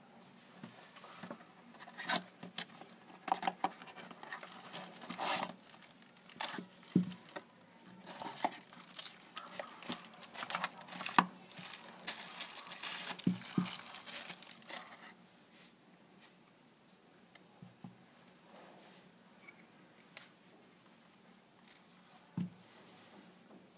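Plastic and cardboard packaging crinkling and rustling in bursts as an LED spotlight is unwrapped by hand. The second half is mostly quiet apart from a few soft knocks, one of them near the end.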